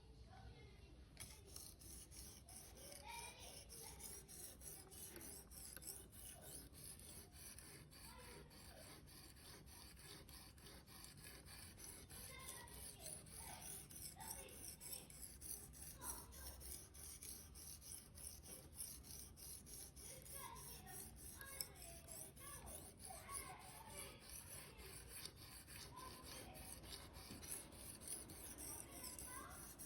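Victorinox knife blade being drawn against a sharpener: faint, repeated scraping strokes of steel on an abrasive.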